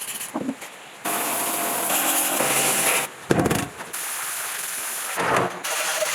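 A power tool running in two bursts of about two seconds, with a sharp knock between them and another at the end.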